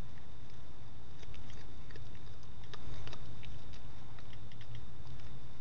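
A cat chewing a praying mantis: small irregular crunches and clicks, over a steady low hum.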